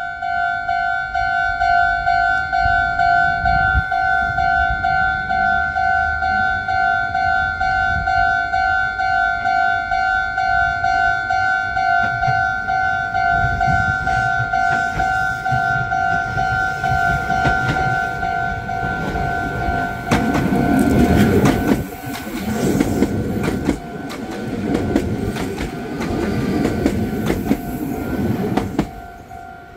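A railway level-crossing alarm rings on with a steady, pulsing electronic tone. From about 17 seconds in, a Meitetsu 4000 series electric train passes close by with a loud rumble and wheels clattering over the rail joints.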